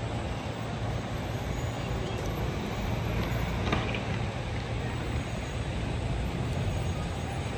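Steady city traffic noise, a low even rumble without distinct passing vehicles, with a brief sharper sound a little past halfway.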